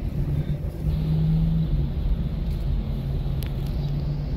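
Car running, heard from inside the cabin: a steady low rumble with a constant low hum.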